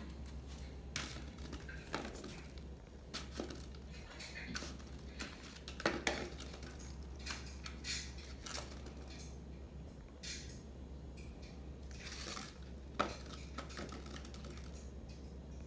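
Small pumpkin knocked and pushed across a tile floor by cats batting at it: scattered clatters and knocks, a few every couple of seconds, the loudest about six seconds in and again near thirteen seconds.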